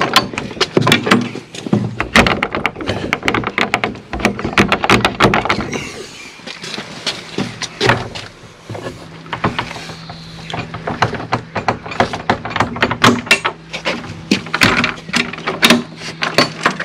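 Wooden garden gate rattling and knocking as it is worked open from over the top: a long run of sharp clicks and knocks, with a steady low hum underneath. The gate is hard work to open.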